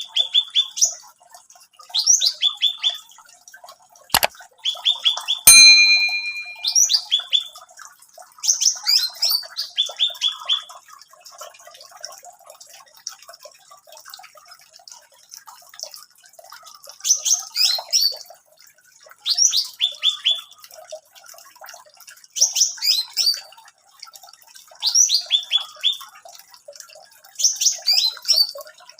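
A songbird sings short phrases of quick, falling notes, one phrase every two to three seconds. Two sharp clicks come about four and five and a half seconds in; the second is followed by a brief steady ringing tone.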